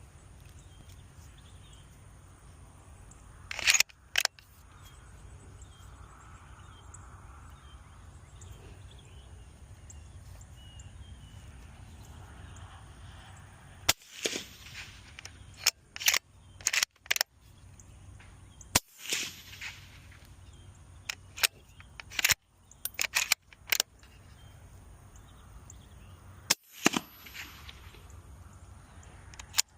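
Suppressed rifle shots from a .308 bolt-action rifle fitted with an AB A10 Warthog suppressor, fired one at a time several seconds apart, with smaller clicks between them.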